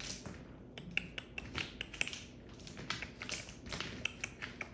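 Irregular light clicks and taps, several a second, from a miniature schnauzer puppy playing with a toy.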